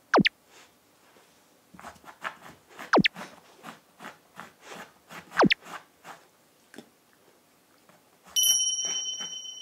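Corgi scratching and pawing at a floor mat in a quick series of soft scrapes, with three sharp falling-pitch 'zip' sound effects laid over it. Near the end a bright ringing chime sounds and fades out.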